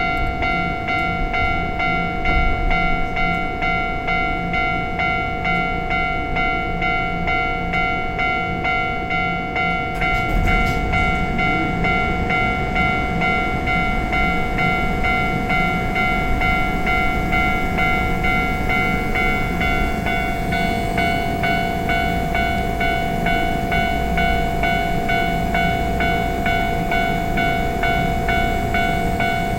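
Railway level-crossing alarm ringing its steady electronic warning tone without a break. From about ten seconds in, a train's rumble and wheel noise rise beneath it.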